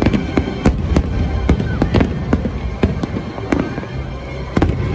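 Aerial fireworks display: shells bursting in quick succession, several sharp bangs a second over a continuous low rumble.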